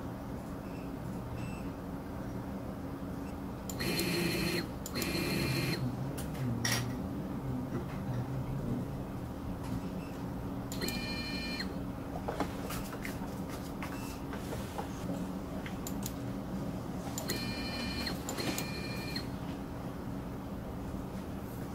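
Fastech EzM-42M-A-J stepper motor making short positioning moves, each a brief whine with several high tones, five in all and mostly in pairs about a second apart, over a steady low hum.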